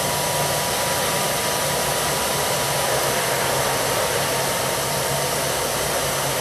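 Hair dryer running steadily as the blower of a charcoal brake-drum forge, forcing air through a pipe into the fire: an unbroken rushing noise with a faint steady whine and low hum.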